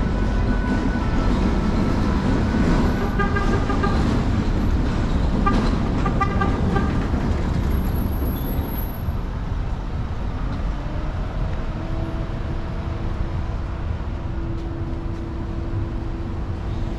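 Street ambience with a motor vehicle running close by over a steady low rumble. A steady hum joins about twelve seconds in.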